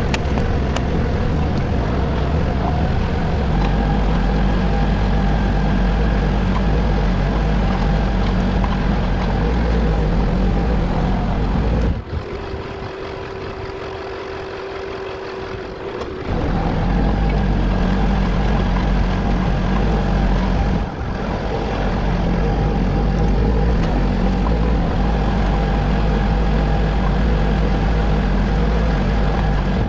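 Tractor engine running steadily. About twelve seconds in it drops for roughly four seconds to a quieter, single steady hum, then picks up again.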